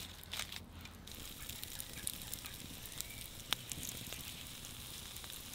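Wood campfire burning and crackling quietly, with a few sharp pops from the burning logs.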